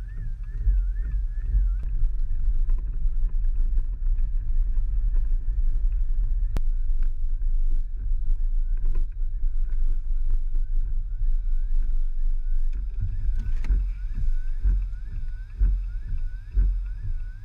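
Strong wind near a tornado buffeting the microphone: a loud, gusty low rumble that surges and eases.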